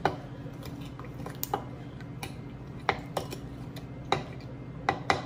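Wooden spoon stirring crushed tomato sauce in a glass mixing bowl, with scattered light knocks of the spoon against the glass, over a low steady hum.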